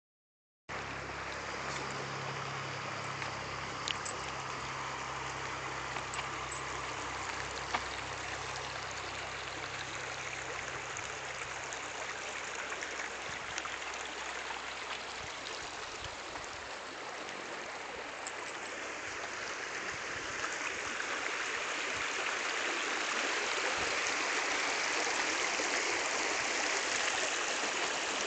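Small creek running steadily under a wooden bridge, a continuous rush of water that grows louder over the last third.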